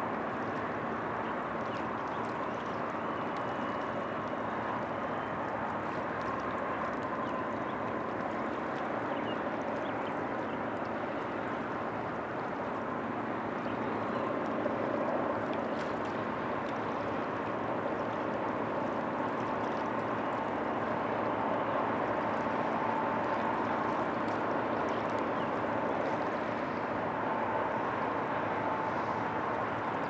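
Steady water noise of the Tennessee River, with a faint hum running through it, swelling slightly in the second half.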